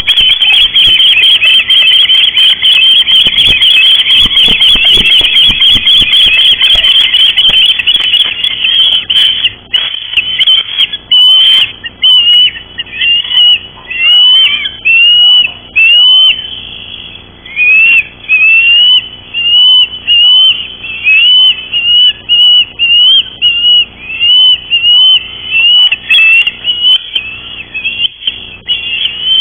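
Ospreys at the nest giving loud, high whistled chirps: a dense, rapid run of calls for the first several seconds, then separate upslurred whistles one or two a second. About ten seconds in, an adult landing on the nest beats its wings.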